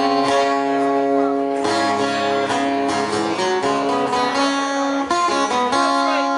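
Guitar in an unusual tuning playing the intro of a song: ringing chords over a held low note, changing a few times.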